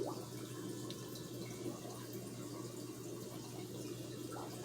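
Aquarium water trickling and splashing steadily, as a filter's flow keeps the tank's water circulating, over a low steady hum.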